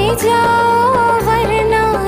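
Hindi film song music: a held, pitch-bending melody line over sustained low chords, with no words sung.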